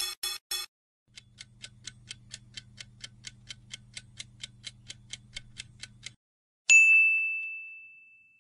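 Quiz-game sound effects: three quick pops as the answer choices appear, then a countdown timer ticking about four times a second over a faint low hum for about five seconds. Near the end a single bright ding marks the answer reveal and rings out, fading slowly.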